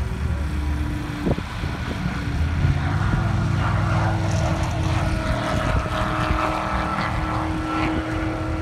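Distant race car engine at high speed on the runway, a drone held at a fairly steady pitch over a low rumble. It grows louder and fuller from about three seconds in.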